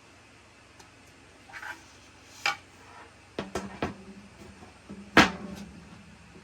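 Shoe rack parts being handled during assembly: a few sharp knocks and clatters, the loudest about five seconds in.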